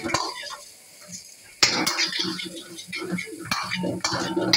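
Metal spatula scraping and clanging against a steel wok while chicken is stir-fried. The clatter starts abruptly about a second and a half in and carries on as rapid repeated strikes.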